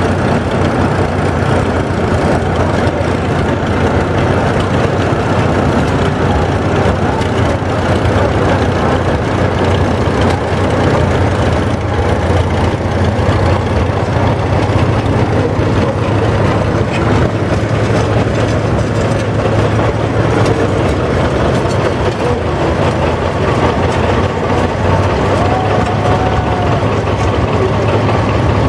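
Several antique farm tractor engines running at low speed as the tractors drive slowly past in a line, a John Deere diesel nearest. The sound is a steady, heavy drone with no change in pace.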